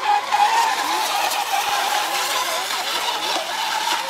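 Model racing boat's motor running at full speed, a steady high-pitched note that wavers slightly in pitch, over a hiss of spray.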